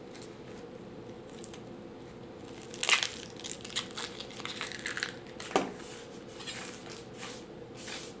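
Dry, papery outer skin of a red onion crackling and tearing as it is peeled off by hand, in a run of short crinkles and snaps that starts about three seconds in.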